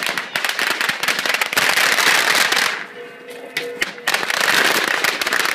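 Firecrackers going off in rapid, dense crackling pops, easing briefly about three seconds in before picking up again.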